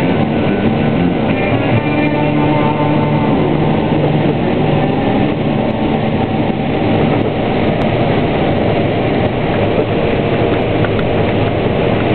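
CAT 485R tracked combine running steadily under load while harvesting corn with a 12-row head: a loud, continuous machine drone with rattle and no pauses.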